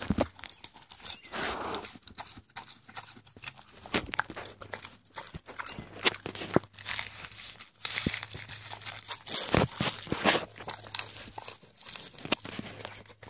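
One-year-old pig chewing iceberg lettuce, crunching the leaves and smacking its lips in an irregular run of wet clicks and crunches.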